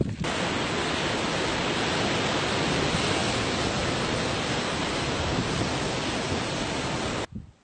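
Steady, even rushing roar of surf and water where lava pours off a sea cliff into the ocean. It starts abruptly just after the beginning and cuts off suddenly near the end.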